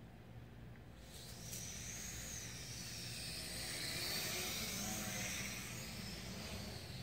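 MJX X600 hexacopter's motors and propellers spinning up as it lifts off from the grass, then whining steadily in flight, the pitch wavering up and down with the throttle.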